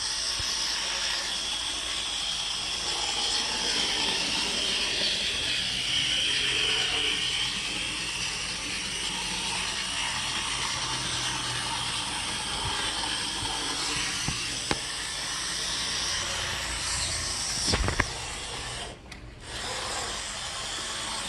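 Märklin Z-scale railbus running on track, its tiny 5-pole motor and wheels making a steady whir. Near the end there are a couple of sharp clicks and a brief drop in level, then the whir resumes. The 5-pole motor replaced a 3-pole one to cure extremely noisy running.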